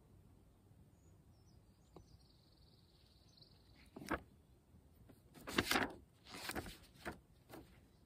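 Paper pages of a book being turned. There is a quick flick about four seconds in, then several short rustles of paper over the next three seconds.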